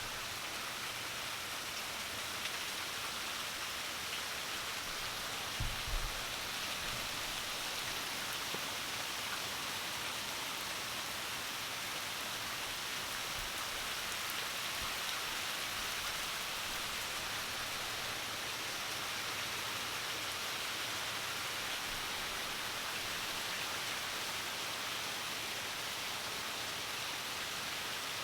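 Heavy rain pouring down as a steady, even hiss, with a couple of brief low bumps about six seconds in.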